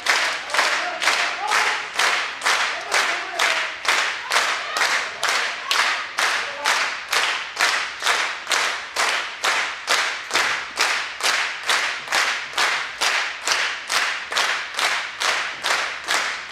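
An audience clapping in unison in a steady, even rhythm, about two and a half claps a second.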